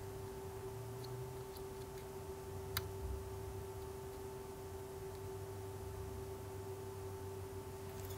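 Faint, steady electrical hum with two constant whining tones, and a single light click nearly three seconds in as tweezers and soldering iron work on a circuit board.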